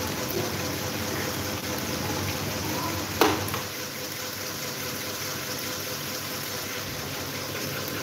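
Several electric table fans running together: a steady rush of air over a faint motor hum. About three seconds in comes a sharp click as a button on a fan base is pressed, and the noise drops a little after it; another click comes at the very end.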